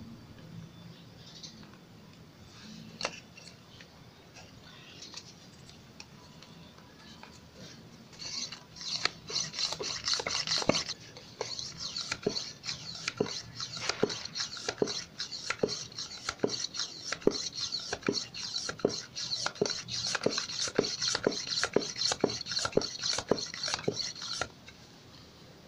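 Mini portable hand air pump pumped steadily into a motorcycle tyre, about two strokes a second, starting some eight seconds in and stopping abruptly about a second before the end. A single click comes earlier as the hose is being fitted to the valve.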